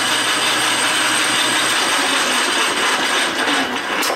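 Small belt-driven metal lathe cutting a metal spacer down to length, the tool throwing hot chips: a loud steady cutting noise over the lathe's running hum, easing off near the end.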